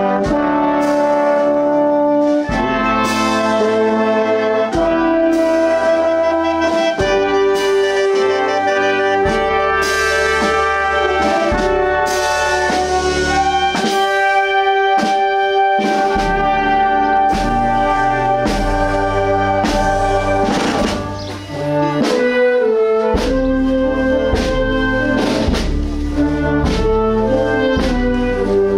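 Marching wind band playing a march while walking: trombones, euphoniums, a sousaphone and clarinets sounding sustained chords and a moving melody.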